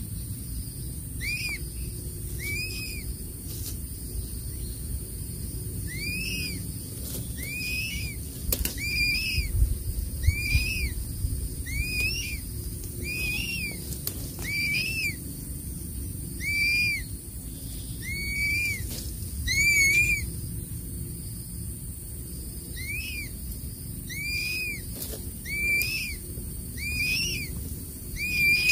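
Crested serpent eagle chick calling over and over, a short whistled note that rises and falls in pitch, about once every second with a brief pause partway through: begging for food at the nest.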